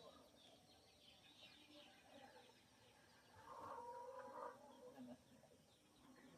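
Faint outdoor bird calls: short high chirps in the first half, then a louder, lower call lasting about a second around the middle.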